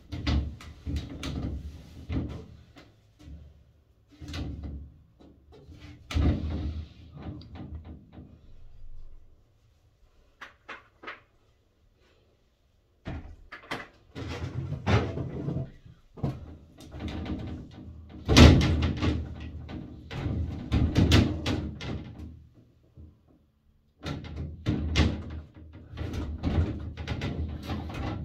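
Glass shower enclosure's door panels and frame being handled: irregular knocks, rattles and clatters, quieter for a few seconds midway, loudest about two-thirds through.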